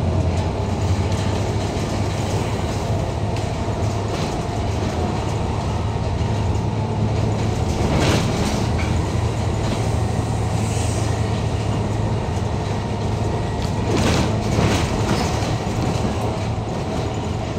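Interior of a moving double-decker bus: the diesel engine running with road noise and the body and windows rattling. There are a couple of brief louder clatters about eight and fourteen seconds in.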